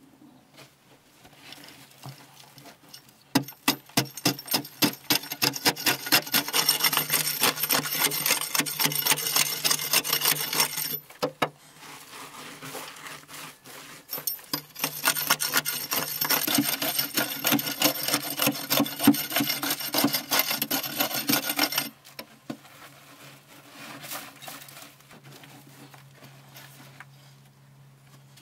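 A long-handled hand digging tool scraping and chipping at packed earth, in rapid repeated strokes. It comes in two long bouts, the first starting about three seconds in, with a short pause between and only scattered scrapes near the end.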